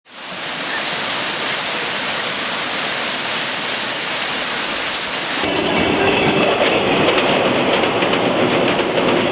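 A steady rushing hiss fades in, then about halfway through gives way abruptly to an electric commuter train passing close by, its wheels clacking rapidly over the rail joints.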